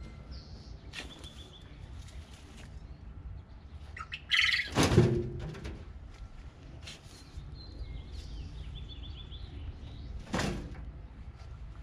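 Forkfuls of compost tossed into a wheelbarrow: a scrape and thud about five seconds in, the loudest sound, and another near the end. Songbirds chirp and trill throughout.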